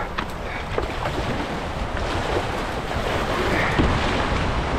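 Shallow creek water rushing over rocks around a canoe in a class-one swift, with wind buffeting the microphone.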